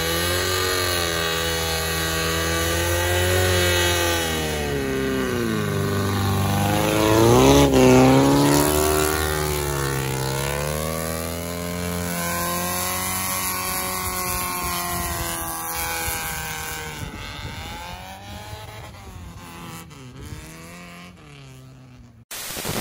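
Engine of an off-road race car revving up and down repeatedly under load, its pitch highest about eight seconds in. Near the end it drops and fades away.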